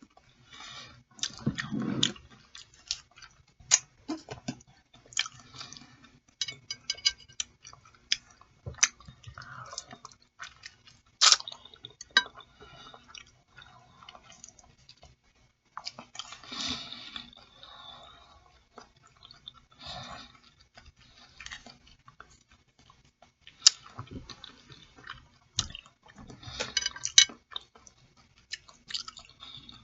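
Close-up mouth sounds of eating boiled chicken feet: chewing, with many irregular wet clicks and smacks.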